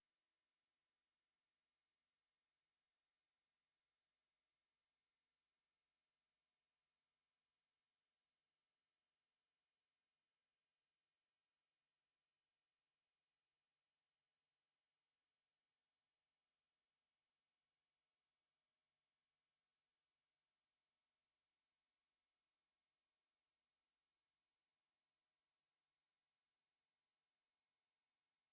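A steady, high-pitched pure sine-wave test tone at 9456 Hz, held at one pitch and one level. It is the kind of tone played to test speakers or to shake water and dust out of a phone speaker.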